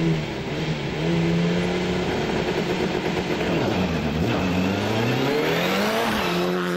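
Mitsubishi Lancer Evo rally car's turbocharged four-cylinder engine held at steady revs, then launching about four seconds in: the revs climb, break at a gear change, and climb again as the car comes by near the end.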